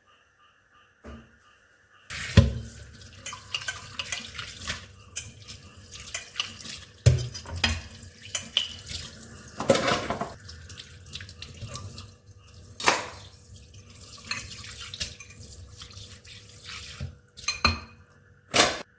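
Kitchen tap running into a sink while dishes are washed, with clinks and knocks of crockery and utensils against each other and the sink. The water starts about two seconds in and stops near the end, followed by a couple of last knocks.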